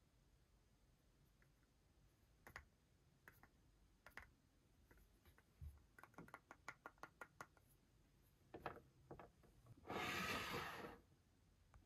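Faint clicks and taps from toy packaging being handled, with a quick run of clicks in the middle, then about a second of rustling near the end.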